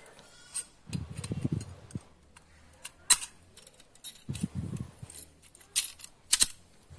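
Steel antenna mounting bracket with a U-bolt clamp being handled, its metal parts clinking against each other in a few sharp clicks, about four over the span.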